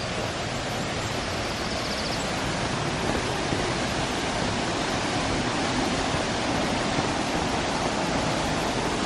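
Steady rush of running water from the Aira Force waterfall in the gorge, the falls running low after dry weather.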